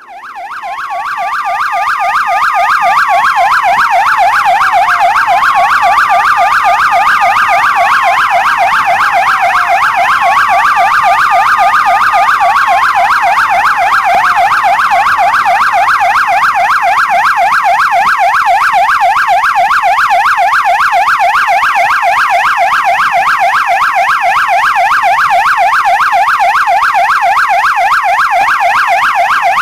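Police siren on a rapid yelp, its pitch warbling quickly up and down without pause. For the first fifteen seconds or so a slower wail rises, holds and falls over it about every five seconds, then only the fast yelp goes on. It fades in over the first few seconds.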